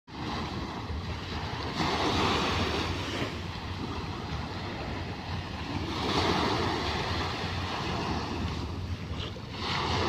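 Small sea waves breaking and washing up a sandy beach, with wind rumbling on the microphone. The surf swells louder about two seconds in and again about six seconds in.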